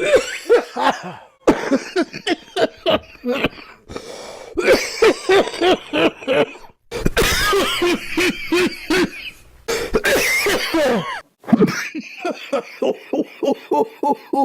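A person coughing over and over in loud fits, ending in a fast run of short coughs near the end.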